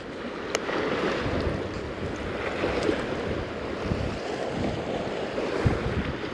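Wind buffeting the microphone over river water washing against an aluminium fishing boat, with a sharp click about half a second in.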